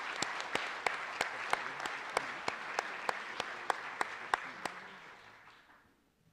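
Audience applauding, with one set of hands clapping close by in a steady rhythm of about three claps a second. The applause dies away near the end.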